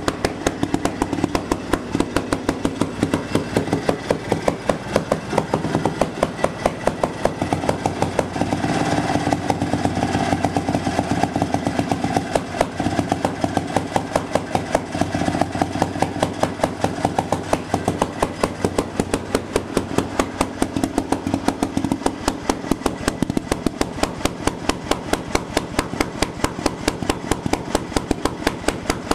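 1949 Fairmont single-cylinder two-stroke railway engine running steadily under its own power, each firing stroke a sharp bang at an even pace of several a second.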